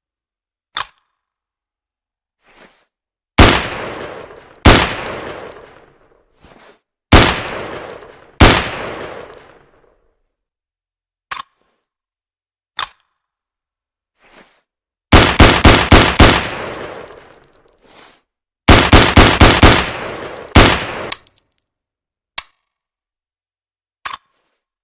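Ruger 10/22 semi-automatic rifle firing, each shot trailing off in an echo. Four single shots come in two pairs, then two rapid strings of about six or seven shots, fired roughly four a second. Quieter clicks fall between the shots.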